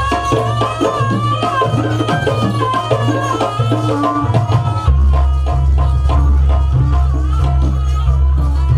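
Loud live jaranan dance music: drums and percussion beating under a wavering high melody line. A heavy deep low drone is weak for the first few seconds and comes back loud about five seconds in.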